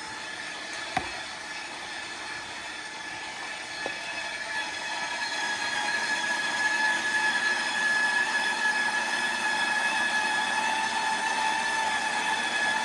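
KitchenAid stand mixer's motor running with a cheese grating attachment, shredding a block of cheese: a steady whine with two short clicks in the first few seconds, getting louder about five seconds in.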